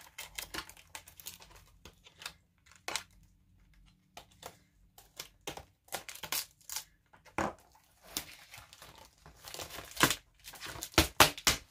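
X-Acto knife cutting and scraping through cardboard packaging, with cardboard and paper crinkling and tearing in short irregular scratches. The scratching gets busier and louder over the last few seconds as the wrapping is pulled apart.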